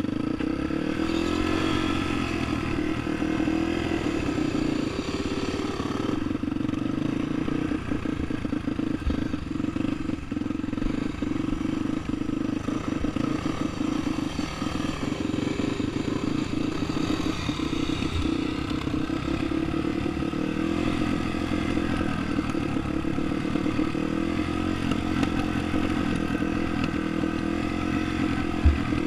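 Dirt bike engine running steadily as the bike is ridden over loose dirt, heard close up from the bike itself, with a sharp knock near the end.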